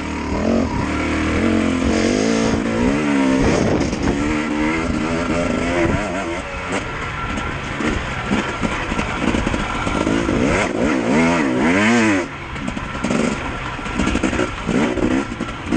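KTM dirt bike engine revving up and down as it is ridden along a dirt trail, its pitch rising and falling with the throttle, with a brief drop off the throttle about twelve seconds in. It is heard from the rider's helmet camera.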